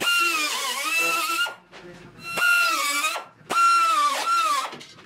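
Pneumatic cut-off tool cutting the rusted sheet steel of a Triumph TR6's front wheel-arch panel: three runs of a high whine, each dropping in pitch as the wheel bites into the metal and recovering as it eases off.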